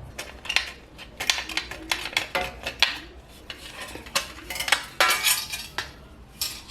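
Thin sheet metal from a gas stove's burner plate being cut and worked by hand: irregular metallic scraping strokes and clinks, some lasting about half a second.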